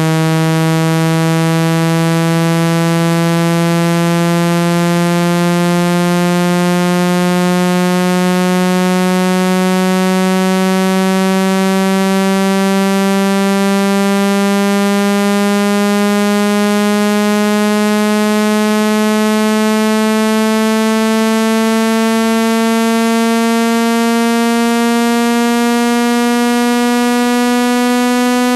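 Synthesized buzzing test tone, rich in overtones, gliding slowly and steadily upward in pitch: a speaker water-ejection sound meant to vibrate trapped water out of a phone speaker.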